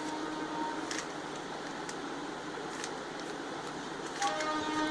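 A Rubik's cube's faces being turned by hand, giving a few faint clicks about a second apart over a steady background hiss.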